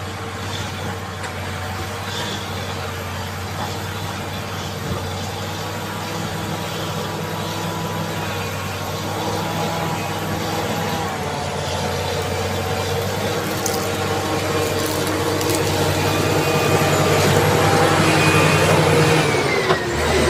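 Caterpillar D7G bulldozer's six-cylinder diesel engine running steadily under work, growing gradually louder. Near the end its pitch drops briefly, then picks up again.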